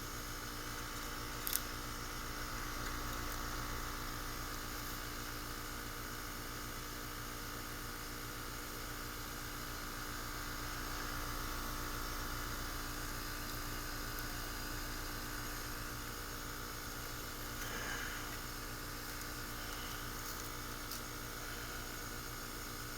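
R-410A heat pump running steadily: a constant mechanical hum with an even fan-like rush. A single sharp click sounds about a second and a half in.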